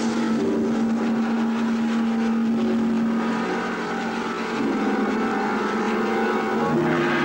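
Passing train: a steady mechanical drone with several held tones, which drop lower about three and a half seconds in and again near the end.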